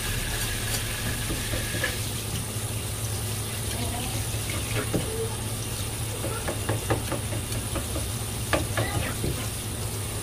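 Tap water running steadily in a fine spray onto a plastic cutting board and fish fillets, over a low steady hum. Scattered light clicks and taps come from the knife and fish being handled, mostly in the second half.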